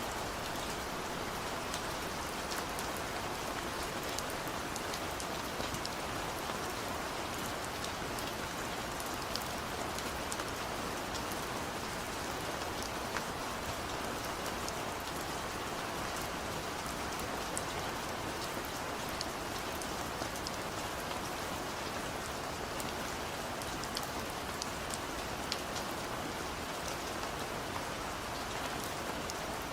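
Steady rain falling on a surface, a constant hiss with scattered individual drops ticking through it.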